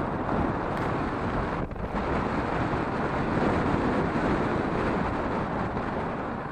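Wind rushing over an action camera mounted on the door of a moving car, mixed with tyre and road noise, with a brief lull about a second and a half in.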